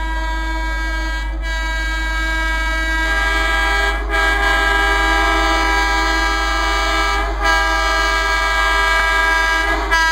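Air horn of a WAP4 electric locomotive sounding a string of long, loud blasts, each held about three seconds with only a short break between them.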